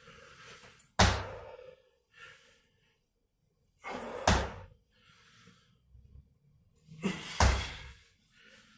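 Sneakers landing on a hard floor from squat jumps: three loud thuds about three seconds apart, each just after a short rush of noise.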